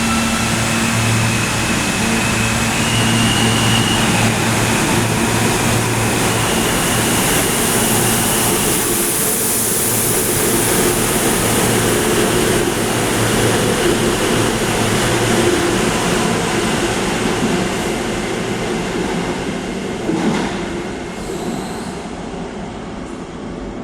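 R160 subway cars pulling out of the station and running past, a steady low hum and a higher whine over the rush of the wheels, growing quieter over the last several seconds, with a brief knock about twenty seconds in. One of the cars, #9869, has a malfunctioning air compressor.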